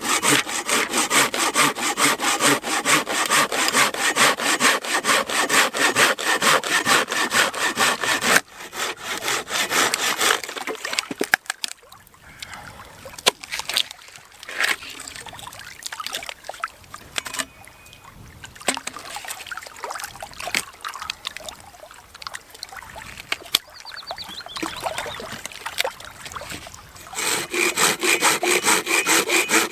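Wood being cut with a hand saw in quick, even back-and-forth strokes. The sawing pauses for a stretch of quieter, scattered knocks and handling noises, then starts again near the end.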